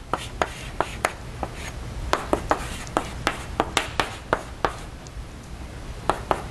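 Chalk writing on a blackboard: a quick, irregular run of sharp taps and short scratches, about three strokes a second, as an equation is written out.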